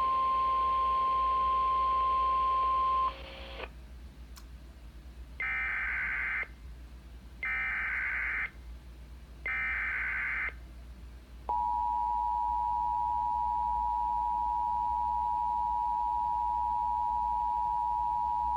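Sage EAS ENDEC emergency alert tones for a Tornado Warning. A steady single tone stops about three seconds in. Then come three one-second bursts of EAS digital header data, and from about eleven seconds in the steady two-tone EAS attention signal.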